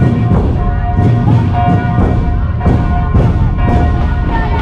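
Church bells ringing together with heavy drum beats, the strikes coming roughly twice a second over sustained ringing tones.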